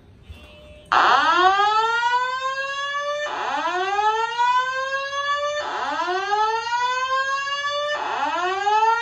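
Simplex 4100ES voice evacuation system sounding its alarm tone through a wall-mounted speaker-strobe: a rising whoop that sweeps up and levels off, repeating about every two and a half seconds, starting about a second in. It is the evacuation tone between the spoken emergency messages.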